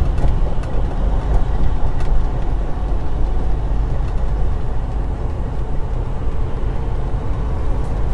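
Inside a semi-truck's cab while driving on a rough highway: the steady low rumble of the engine and tyres, with a few faint knocks and rattles.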